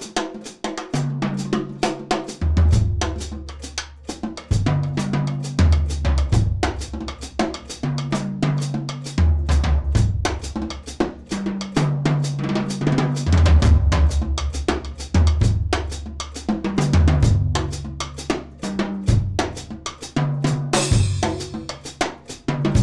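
Drum kit played with sticks in a busy, unbroken groove of snare, tom and bass-drum strokes, over low held notes that change pitch every second or so; a cymbal crashes near the end.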